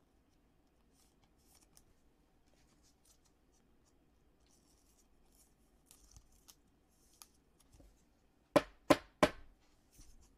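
Soft plastic rustling and scraping as a trading card in a thin plastic sleeve is slid into a rigid plastic toploader, then three sharp taps in quick succession about eight and a half seconds in.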